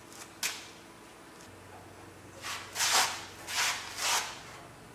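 Hand work inside a steel concrete mixer drum: a sharp click about half a second in, then four short scraping noises close together near the middle.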